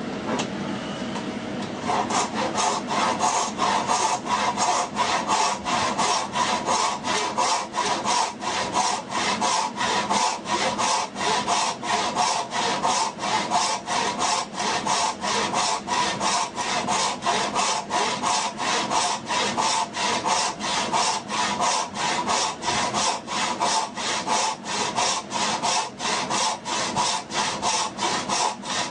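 Hand saw cutting wood in steady, even back-and-forth strokes, about two a second, starting about two seconds in.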